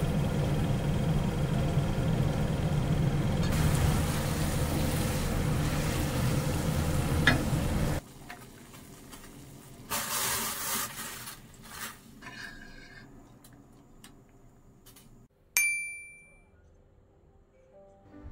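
Zhajiangmian sauce sizzling steadily in a frying pan over a gas burner for about eight seconds, then it cuts to quieter sounds of noodles going into a pot of boiling water. Near the end comes a single ringing clink that dies away.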